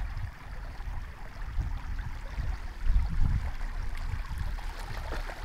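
Muddy river water flowing and rushing, under an uneven low rumble that is loudest about three seconds in.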